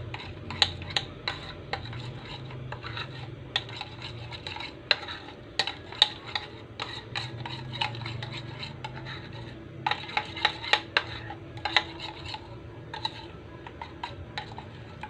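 A utensil stirring and tossing instant pancit canton noodles in their sauce, knocking and scraping against the dish in irregular clinks, with a quick run of clinks about ten seconds in.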